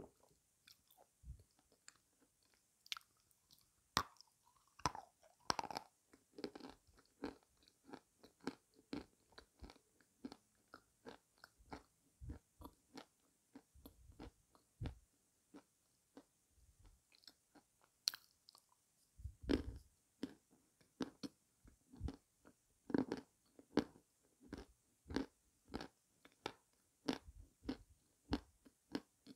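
A person chewing something crunchy with the mouth closed: a steady run of crisp crunches, about one and a half bites a second.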